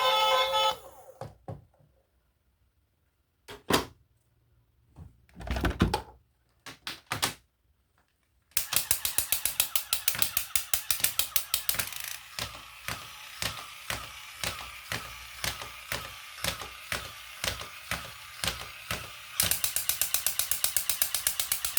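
Music ending, then a few scattered knocks, then a long run of sharp, regular mechanical clicks at about two or three a second that speed up sharply near the end.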